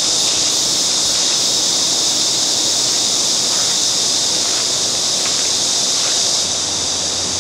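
Steady outdoor hiss, strongest in the high range and unchanging, with no distinct events.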